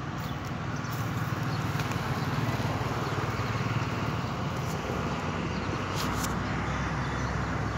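An engine running steadily with a low hum, its lowest rumble growing stronger about six seconds in.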